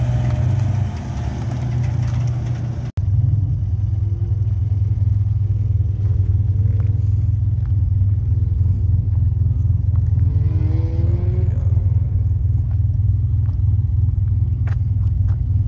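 Idling engine heard close to the exhaust tip of a Mitsubishi sedan, a steady low rumble. Before a cut about three seconds in, a similar engine rumble comes from another vehicle.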